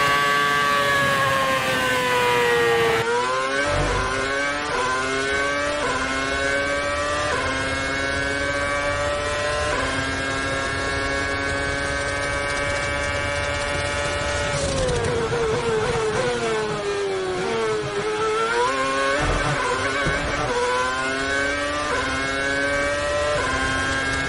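Onboard sound of a Formula One car's 2.4-litre V8 at very high revs. It shifts quickly up through the gears, the pitch dropping a step at each shift. About two-thirds of the way through it falls in pitch under braking, with quick blips on each downshift, then climbs back up through the gears. There are two short low thumps, about 4 s and 19 s in.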